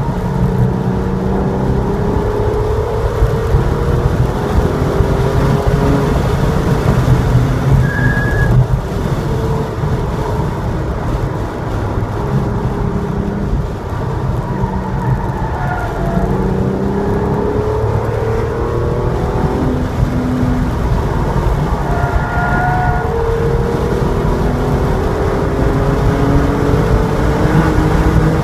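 Porsche 911 Targa's flat-six engine heard from inside the car on track. It revs up several times as the car accelerates out of corners, the pitch rising each time, and climbs to about 6,000 rpm under full throttle near the end.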